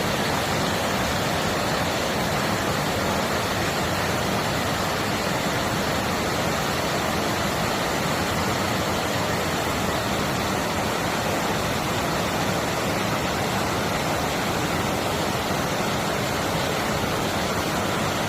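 Clear mountain stream rushing over rocks, a steady even water noise.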